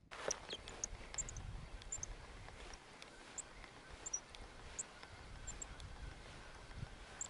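Small birds chirping now and then, short high calls scattered over a steady outdoor hiss, with wind rumbling on the microphone underneath.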